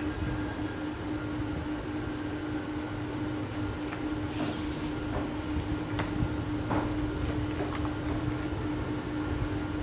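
Whiteboard marker scratching and squeaking in short strokes as words are written, over a steady low hum and rumble of room noise.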